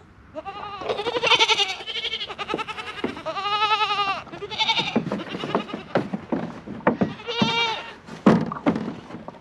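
Goats bleating close by: several loud, wavering bleats, with short knocks and scuffs between them.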